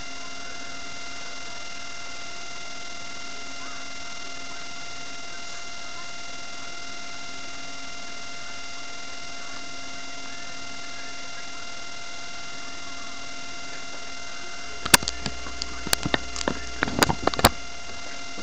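Steady electrical whine with a stack of even overtones, picked up in the webcam's recording. About fifteen seconds in comes a short cluster of sharp knocks and clicks, loudest near the end, as a hand bumps and handles the camera.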